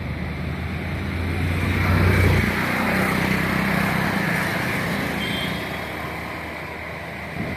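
A motor vehicle's engine and road noise, swelling to a peak about two seconds in and then slowly fading.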